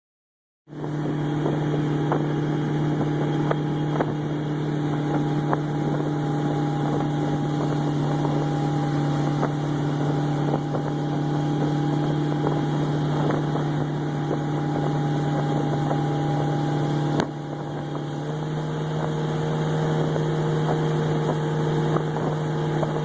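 A boat's motor running at a steady speed, with wind buffeting the microphone. About seventeen seconds in there is a brief dip, and then it settles at a slightly higher pitch.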